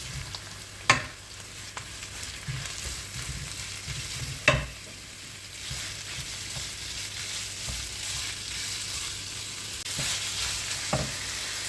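Onions and garlic sizzling in a frying pan as they are stirred. A spoon knocks sharply against the pan twice, about a second in and louder around four and a half seconds in, with a fainter knock near the end.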